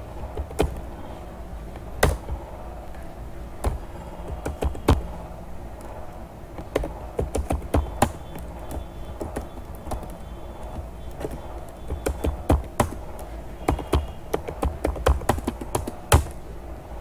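Typing on a computer keyboard: irregular key clicks, some in quick runs, over a steady low hum.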